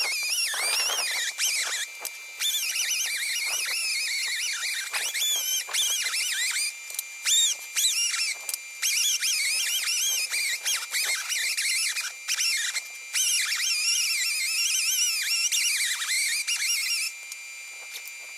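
High-speed rotary power tool working metal, with a steady thin whine and a wavering, high-pitched squeal over it; the squealing stops near the end.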